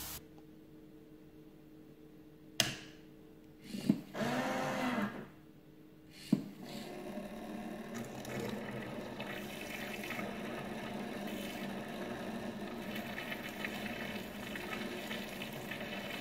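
A homemade Arduino sugar dispenser and stirrer at work. About four seconds in, after a couple of clicks, its sugar-dispensing servo gives a short whir that rises and falls in pitch. After another click its small stirrer motor runs steadily with a light rattle, stirring the mug.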